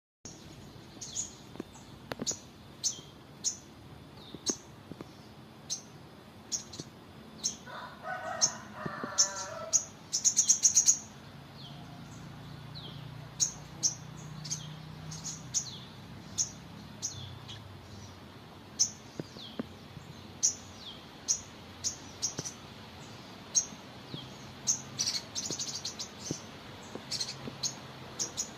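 A newly caught bird known locally as a sogon calling repeatedly in short, sharp chirps, most of them sliding down in pitch, about one or two a second. It breaks into brief buzzy trills about ten seconds in and again near the end.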